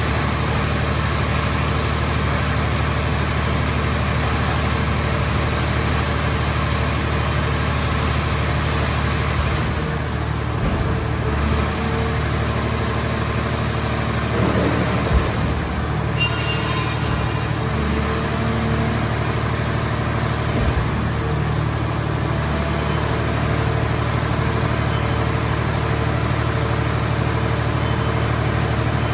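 Engine of a movable car baler running steadily, a continuous low hum, with a sharp knock about halfway through.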